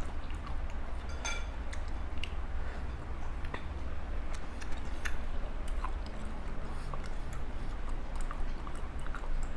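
A person chewing and eating papaya salad close to the microphone: small wet clicks and smacks scattered throughout, over a steady low hum.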